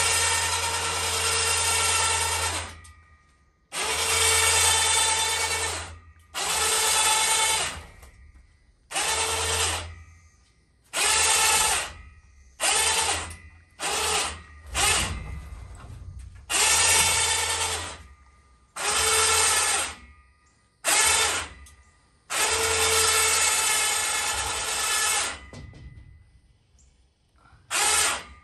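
Harbor Freight electric ATV winch on a homemade crane, run by its hand controller, hauling a roof truss upright. The geared motor whines in about a dozen separate runs of one to three seconds each, stopping and starting between them.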